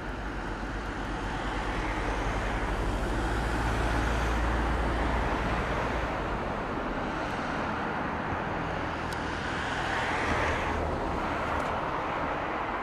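Low, steady vehicle rumble that swells to a peak about four seconds in, rises again a little after ten seconds, then fades near the end.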